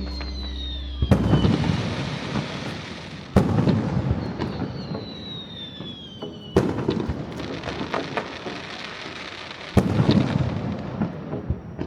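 Aerial fireworks shells bursting: four loud bangs about three seconds apart, each trailing off in a long rumble with crackling. Twice a high whistle falls in pitch between the bangs.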